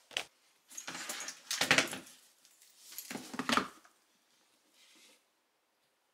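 Rustling and clinking of a dog harness and leash being handled over a sitting dog, in two bursts of about a second each with a few sharp knocks.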